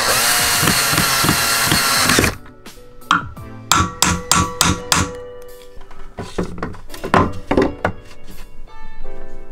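A power drill running for about two seconds and stopping abruptly, likely driving a screw into a wooden shelf board. It is followed by a string of sharp knocks, roughly a dozen over five seconds.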